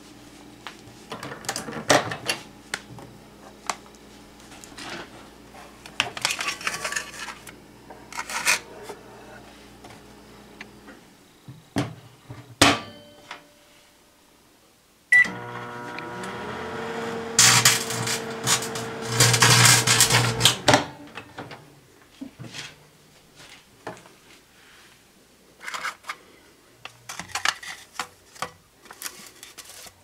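Microwave oven humming with a foil bag inside arcing: irregular crackles and sharp snaps. About halfway through the hum starts up again with a short rising whine, followed by a few seconds of dense, loud crackling as the foil sparks. Scattered clicks and handling knocks come near the end.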